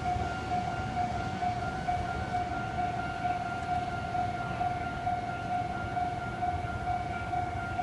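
Japanese railway level-crossing warning bell ringing: an electronic ding that repeats at one steady pitch, over a low background rumble.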